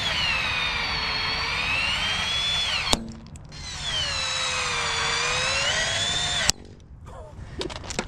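Milwaukee cordless oscillating multi-tool plunge-cutting white PVC pipe in two runs. Its whine sags in pitch as the blade bites into the plastic and climbs back as the cut eases. It stops abruptly about three seconds in, starts again half a second later, and cuts off again a little after six seconds.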